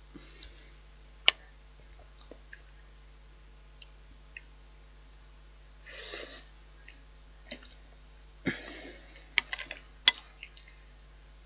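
A spoon clicking and scraping against a bowl while eating, with a few sharp clicks and two short scraping noises, about six and eight and a half seconds in.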